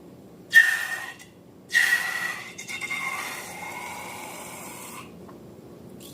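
Air escaping from a balloon's stretched neck with a hissing squeal, in two bursts: a short one about half a second in, then a longer one starting about two seconds in that slowly fades out.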